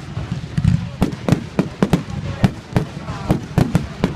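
Fireworks going off in quick succession: sharp bangs and cracks at about three a second, over a low rumble.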